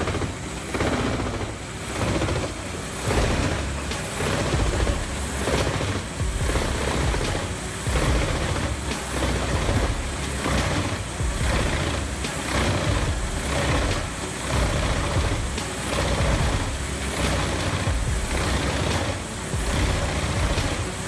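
The Vermeer WC2500TX whole-tree chipper's 600-horsepower engine running under load while it chips trees. The sound swells and eases about every second or so, with scattered knocks.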